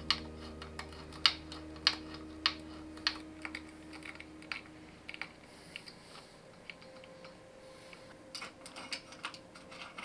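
Sharp metallic clicks of a hex driver and small parts as a brake caliper is bolted onto a downhill fork, about one click every half second at first, then lighter scattered clicks with a quick cluster near the end. A sustained guitar chord fades out over the first two seconds.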